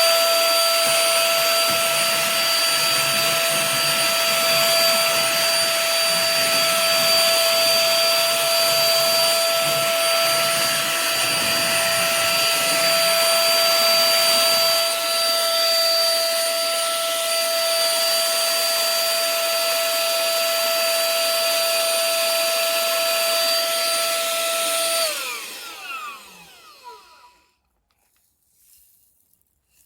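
Tiazhan cordless handheld vacuum cleaner running with a steady high motor whine over the rush of air. About 25 seconds in it is switched off, and the whine falls in pitch as the motor winds down to silence.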